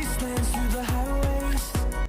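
Background music with a steady beat of about two drum hits a second under a sustained melody.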